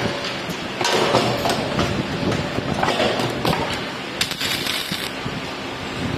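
Automatic steel wire bending and welding machine running, with repeated metallic knocks and clatters over a steady mechanical din and a brief hiss about four seconds in.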